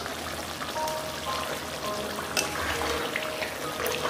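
Thick potato-and-masala curry bubbling and sputtering in a metal kadhai over a gas flame, with a couple of sharp clicks of a ladle against the pan. Soft background music runs underneath.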